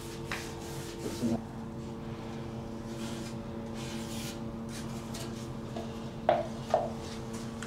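A few short scrapes and taps of a wooden stick working putty out of a plastic cup and onto a joint, the loudest two about six seconds in, over a steady low hum.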